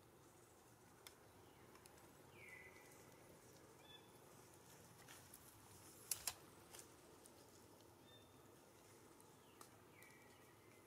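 Quiet forest ambience with a bird calling twice, each call a short high note followed by a whistle that drops in pitch and levels off. A pair of sharp clicks about six seconds in is the loudest sound.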